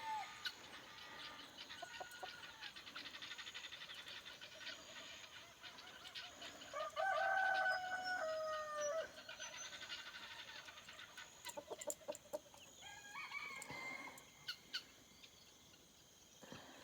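Free-range chickens clucking, with a rooster crowing once for about two seconds starting about seven seconds in, and a second, shorter call around thirteen seconds.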